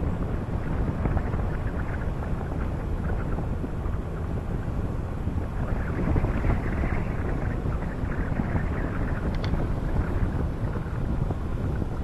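Wind buffeting the microphone of a camera riding on a moving vehicle, a steady low rumble mixed with road noise.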